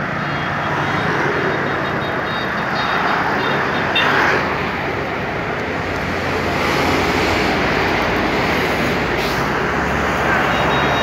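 Steady street noise of road traffic.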